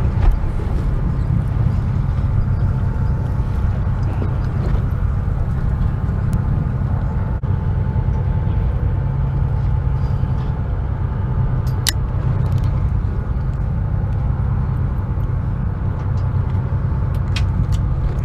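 Fishing boat's engine running with a steady low rumble, with a few faint clicks over it.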